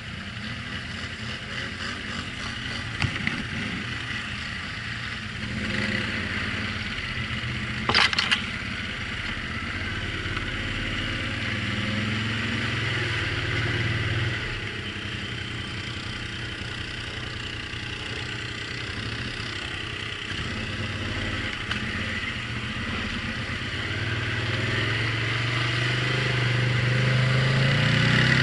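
Quad bike (ATV) engine running at low speed and idling, growing louder and higher near the end as it is driven into water. A short sharp knock about three seconds in and a louder brief clatter about eight seconds in.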